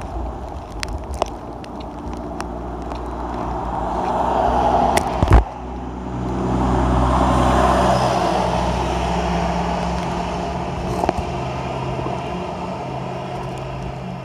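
Cars passing on a rain-wet road, one building up to about five seconds in and a louder one around seven to eight seconds, each swelling and fading. There is a sharp knock just after five seconds.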